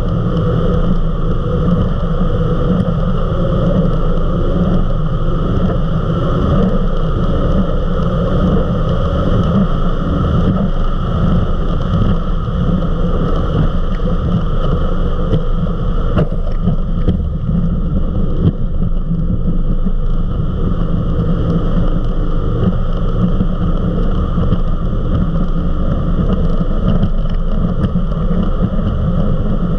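Eliminator 31 XO Speedster powerboat running flat out at about 60 to 77 mph: a loud, steady mix of engine noise and the rush of wind and water.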